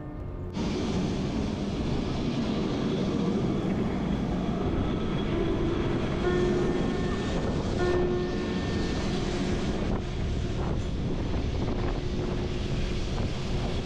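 Steady rushing wind noise on the camera microphone of a rider moving on an electric unicycle. It cuts in suddenly about half a second in, with faint background music underneath.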